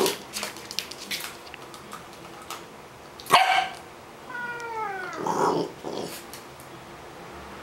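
High-pitched calls from a pet squaring off against another: a sharp, loud yelp about three seconds in, then a longer call falling in pitch about a second later. A few light clicks come in the first second.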